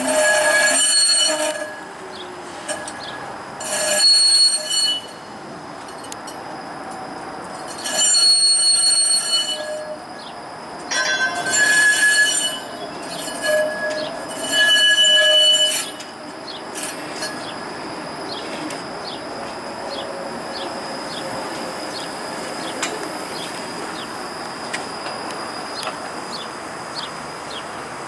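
Wheels of a Toronto Flexity Outlook streetcar squealing on the tight loop curve: five loud, shrill bursts in the first half, each a second or two long, then a quieter, steady running noise for the rest.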